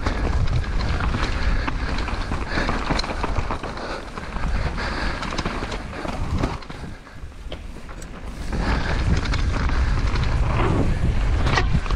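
Wind buffeting a helmet-mounted camera's microphone over the rattle and tyre noise of a downhill mountain bike ridden fast on a dirt trail, with many small knocks and clicks from the bike. The noise drops for about two seconds just past the middle, then picks up again.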